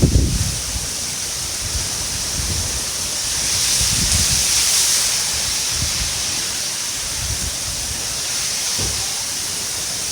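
Heavy rain falling in a steady hiss that swells about four seconds in, with low rumbles of wind on the microphone, the strongest right at the start.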